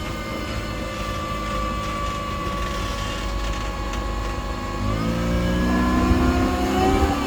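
Car engine under way: its note sags gently, then climbs steadily from about five seconds in as the car accelerates, and drops sharply near the end as it shifts gear, over a low road rumble.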